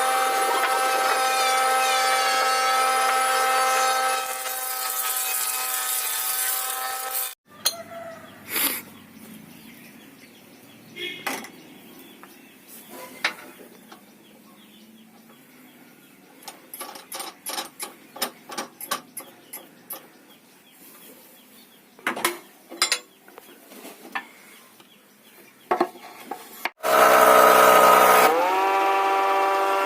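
An electric woodworking power tool runs with a steady whine, then cuts off. Quieter irregular knocks and taps on wood follow for about twenty seconds. Near the end the tool spins up with a rising whine and runs steadily again.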